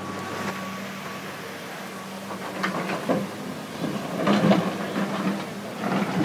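Excavator's diesel engine running with a steady drone, and irregular clanks and clattering of rock from about two and a half seconds in, loudest just past the middle and again near the end.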